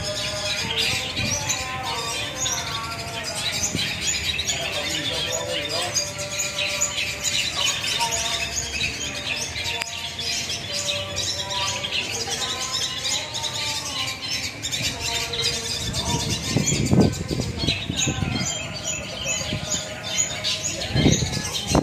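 Several caged long-tailed shrikes (cendet) singing at once, a dense, continuous tangle of rapid chirps and harsh squawks.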